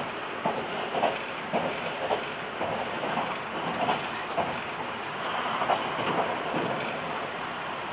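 Electric passenger train running along the track, with steady rolling noise and its wheels clicking over rail joints about twice a second, in uneven bunches.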